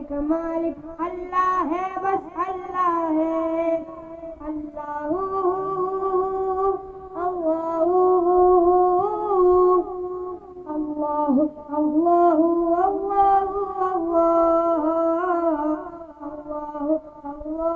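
A hamd, an Urdu devotional hymn praising God, sung unaccompanied by a single high voice over a public-address system, with long held notes that waver and slide between pitches.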